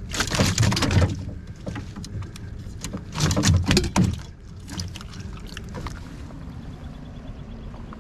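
A landed Atlantic salmon thrashing in a landing net in the bottom of a boat: two loud bouts of flapping and slapping, each about a second long, the second about three seconds after the first, with a few smaller knocks and rustles of net in between and after.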